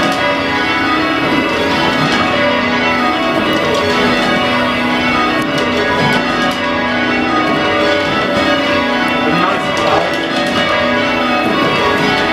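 Change ringing on a light ring of eight church bells cast by Taylor's of Loughborough in 1965, tenor about 7 cwt in B, heard from the ringing room: a continuous, even stream of clear bell strikes.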